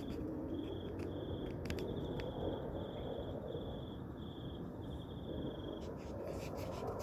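A steady low rumble, the loud noise from the sky that is likened to the heavens roaring, with its cause unknown. Over it an insect trills in short high-pitched pulse trains about every half second, and there are a few faint clicks.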